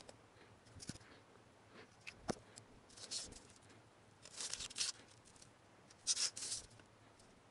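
A pen scratching lines on a sheet of paper along a metal ruler, in several short strokes, with one sharp click about two seconds in.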